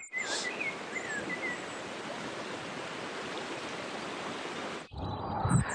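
A small rainforest creek running over rocks in little cascades, a steady rush of water, with a few short bird chirps in the first second and a half. The rush cuts off abruptly near the end.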